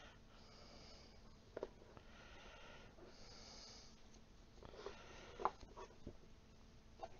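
Faint breathing close to a headset microphone, with soft rustling and a few light clicks from handling a satin wrestling mask. One sharper click about five and a half seconds in is the loudest sound.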